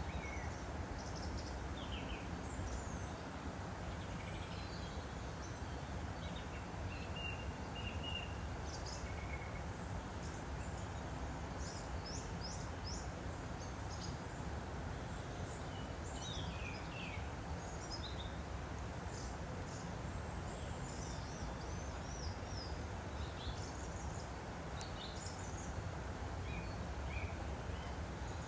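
Woodland stream flowing with a steady rushing sound, and many small birds chirping in short, quick calls throughout.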